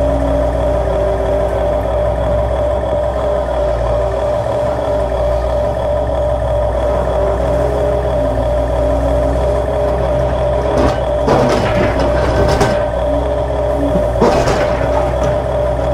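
Radio-controlled toy excavators running with a steady whine as they dig, the pitch shifting as their arms and buckets move. There are two short spells of scraping, about eleven and fourteen seconds in, as the buckets work the dirt and stones.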